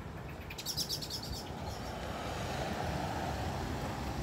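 A bird chirps briefly, a rapid run of high notes about half a second to a second in; then the steady rush of road traffic swells gradually and holds.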